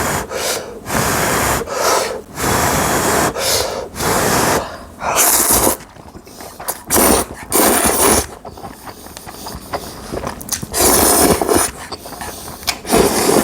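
A person slurping spicy jjamppong ramen noodles, about nine loud sucking slurps of half a second to a second each, with short pauses between.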